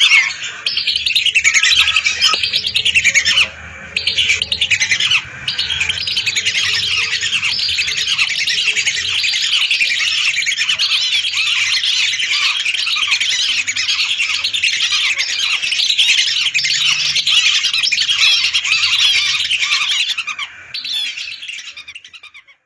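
A large flock of whistling ducks calling together: a dense chorus of shrill whistles, with a short lull about four seconds in, fading away near the end.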